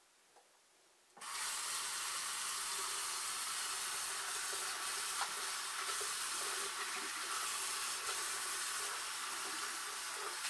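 Bathroom sink faucet turned on about a second in, water running steadily into the basin and down the drain: a flow test for drips after plumbing work.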